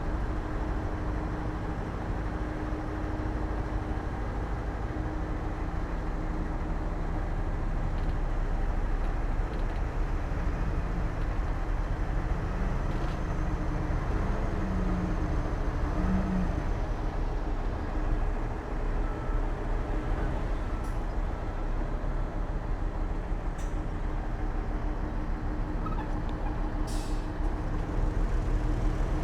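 Diesel engine of heavy earthmoving machinery, a bulldozer working alongside dump trucks, running steadily as a continuous low drone.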